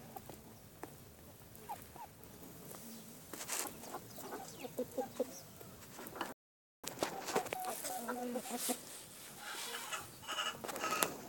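Kalimero broiler chickens clucking in short, scattered calls, with a few light clicks. The sound drops out for about half a second a little past the middle.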